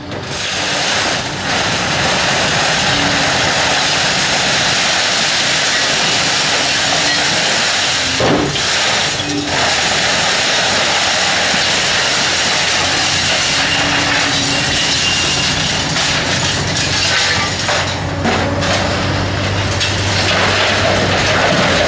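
Caterpillar 345C excavator's diesel engine running under load with its hydraulics, while the demolition grapple rakes and grips tangled scrap metal and rebar: a continuous metallic scraping and clattering. The engine note grows heavier over the last few seconds as the loaded grapple lifts over a steel container.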